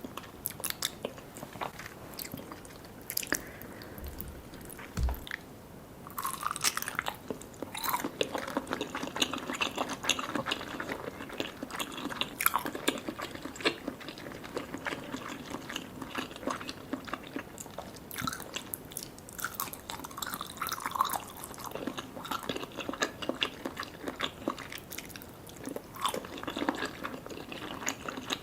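Close-up eating sounds of soft, sticky desserts (Vietnamese jelly and pandan layered cake) being bitten and chewed: rapid wet clicks and smacks of the mouth, sparse for about the first six seconds, then dense and continuous.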